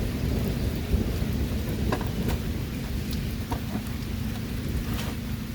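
Rain falling, with a steady low rumble beneath it. A few light knocks and clicks come about two seconds in, at three and a half seconds, and near the end.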